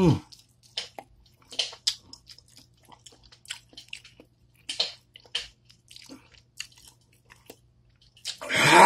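A man biting into a sauce-covered chicken wing, then chewing it with short, irregular wet smacks and clicks of the mouth. Near the end comes a loud breathy sound.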